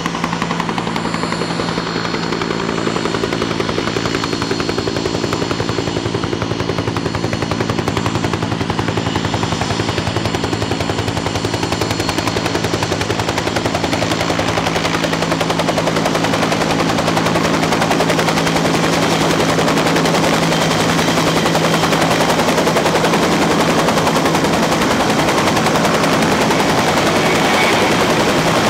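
Aircraft engines running at high power: a loud, continuous roar with a rapid crackle, steady whining tones early on, and a broader roar that builds louder toward the end.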